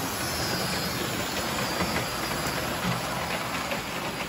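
Toy electric trains running on a model layout's metal track: a steady rumble of motors and wheels, with faint clicking toward the end.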